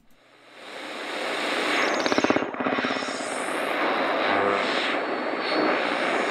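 Intro sound effect for an animated logo: a noisy whoosh that swells over the first two seconds and then holds as a steady, jet-like rush.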